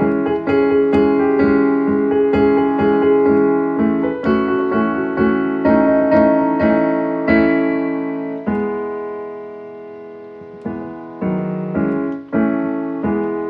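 Piano playing a chord progression, chords struck in a steady rhythm, then one long held chord that fades away from about eight and a half seconds in, and a few more chords near the end.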